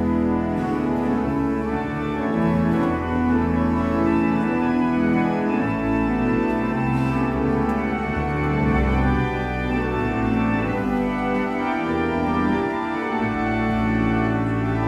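Church organ playing slow, sustained chords, with deep pedal bass notes coming in about six seconds in and again near the end.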